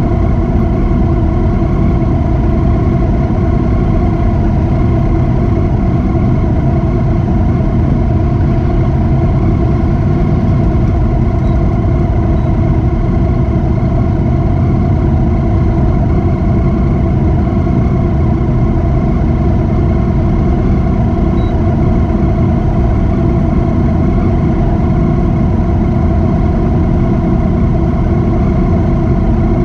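Motorcycle ridden at a steady pace: a loud, even rush of engine and wind noise with no rise or fall in pitch.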